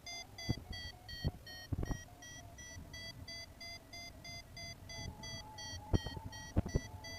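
Paragliding variometer beeping in a steady run of short beeps, about three a second, its pitch drifting slightly up and down: the climb tone that signals the glider is rising in lift. Several sudden thumps of wind buffeting the microphone come through, the loudest near the end.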